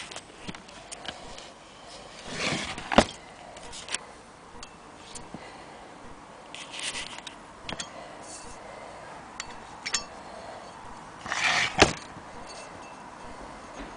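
Handling noise from an antique Willcox & Gibbs cast-iron sewing machine hand crank on its wooden base: scattered clinks, scrapes and knocks as it is turned and moved, with two sharper knocks about 3 seconds in and near the end.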